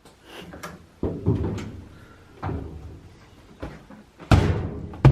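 A run of knocks and bumps, the loudest a door-like slam about four seconds in and another sharp knock at the very end.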